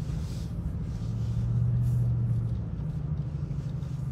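Steady low rumble of a car heard from inside the cabin while it drives, swelling slightly about halfway through.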